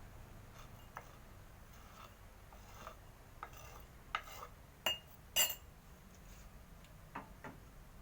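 Scattered light clinks and knocks of kitchenware against a drinking glass as shaved palm sugar and tamarind are put into it. The loudest is a pair of sharp clinks about five seconds in, one with a brief ring.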